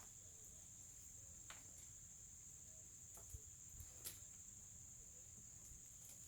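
Near silence with a faint, steady, high-pitched insect trill, as of crickets, and a few soft faint ticks.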